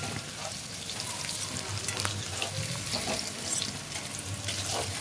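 Potato wedges sizzling and bubbling in hot mustard oil in a wok, with occasional light clicks and scrapes of a spatula against the pan as the wedges are lifted out.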